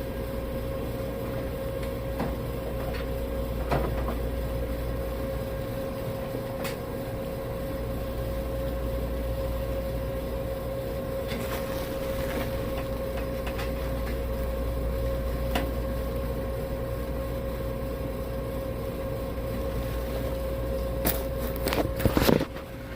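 Steady machine hum with a constant whine over it, broken by scattered light clicks and taps of handling and a short clatter of clicks near the end.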